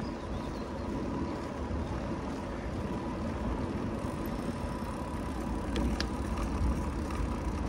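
Steady low rumble of wind and road noise from a road bike rolling along, with two faint clicks about six seconds in.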